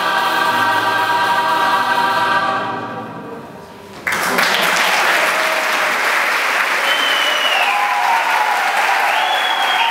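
Mixed choir holding the final chord of the song, which fades away. About four seconds in, the audience breaks into applause with high whistles.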